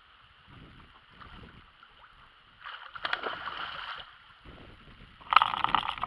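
Fishing reel cranked in two short spells, a rapid whirring click about three seconds in and again, louder, near the end, over a faint steady hiss.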